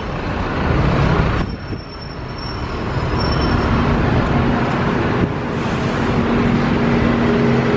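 Red double-decker buses passing close by in heavy street traffic: a steady engine drone and road noise, with a steady low hum from an engine coming in about three seconds in.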